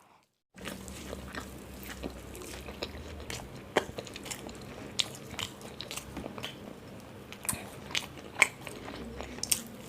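Close-miked eating of paratha: biting, chewing and scattered wet mouth clicks and crunches, over a faint steady low hum.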